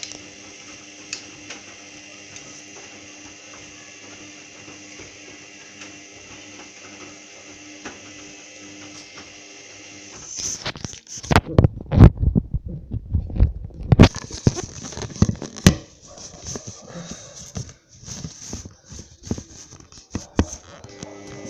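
Hoover Dynamic DYN9124DG washing machine running in the start phase of a cycle: a steady mechanical hum for about ten seconds, then a run of loud irregular knocks and clicks lasting a few seconds, followed by lighter clicking over the hum.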